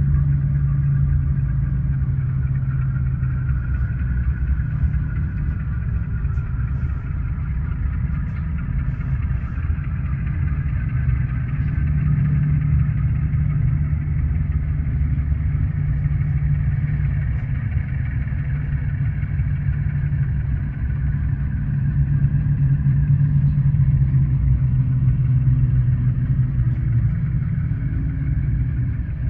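Steady diesel engine sound from the sound decoder of an HO scale Conrail B23-7 model locomotive, a low even hum with little change while the model runs.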